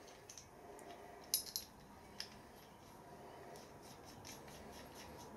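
Light metal-on-metal clicks and faint rubbing as a small plasma-cut metal plate is handled and fitted onto a switch body by hand. There are a few clicks, the sharpest about a second and a half in.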